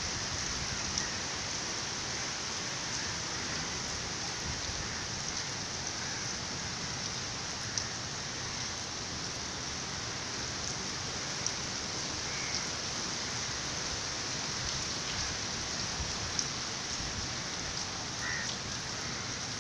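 Steady rain falling on a wet flat concrete roof: an even hiss with scattered drop ticks.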